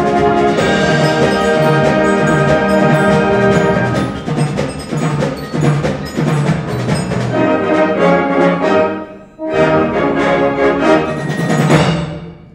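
Wind ensemble playing the closing bars of a concert fanfare: sustained brass and woodwind chords with mallet percussion, a short break about three quarters of the way through, then a final chord that swells and cuts off just before the end.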